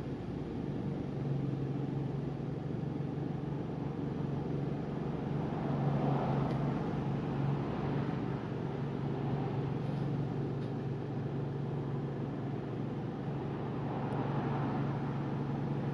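Vehicle engine idling: a steady low hum with a light noise haze above it.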